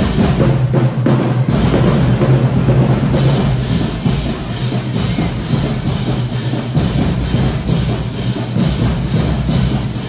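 High school marching band playing: sousaphones and brass over a drumline, with the drums keeping a steady beat of about two strokes a second.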